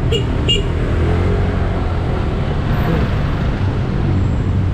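Engine and road rumble of a slowly moving motorcycle passing close beside idling trucks in stopped traffic, a steady low hum throughout. Two short clicks sound close together near the start.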